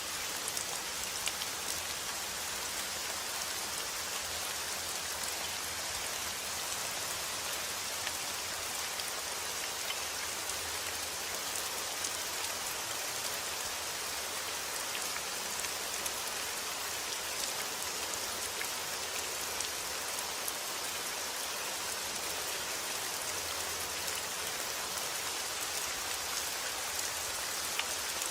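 Steady rain falling, an even hiss with many small drop ticks on surfaces.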